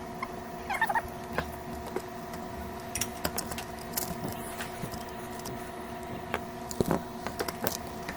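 Scattered light clicks and taps of small tools and parts being handled, with a brief squeak about a second in, over a faint steady hum of several tones.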